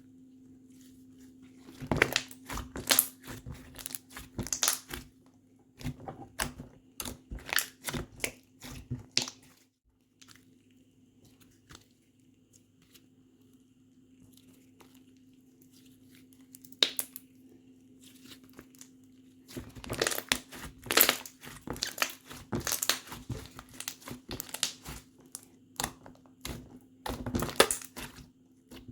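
Slime being squished, stretched and poked by hand, giving rapid sticky pops and crackles in two long spells with a quiet pause between them, over a faint steady hum.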